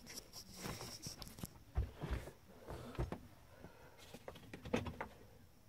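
Plastic wrapping rustling and a cardboard box being handled as a mug is slid out of its packaging, with a few light knocks, the sharpest around two and three seconds in and near the end.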